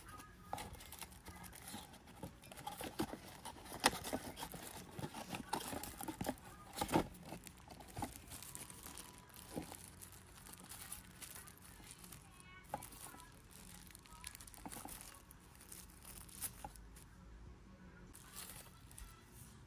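Thin plastic wrapping crinkling and rustling as a dashcam accessory is unwrapped by hand, with light clicks and taps of handling. The crackling is busiest and loudest in the first half and thins out later.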